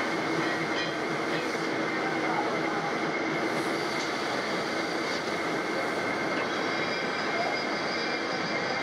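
Steady din of workshop machinery running, with a few faint metal clinks.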